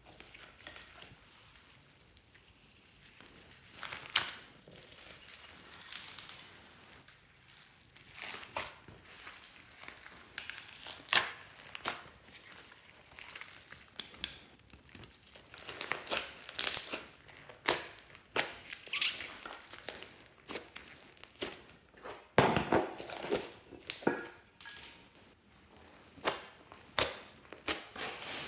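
Glossy slime being squished and kneaded by hand, making irregular sticky pops and crackles that grow busier and louder in the second half.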